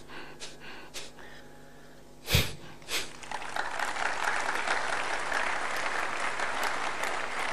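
Audience applauding, starting about three seconds in and carrying on steadily, just after two sharp knocks; a few light clicks before that.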